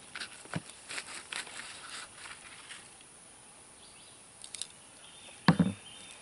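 Small metal clicks and scrapes as food is worked out of a wire grill basket onto a paper plate, then a single sharp knock about five and a half seconds in as a knife is set down on a plastic cooler lid.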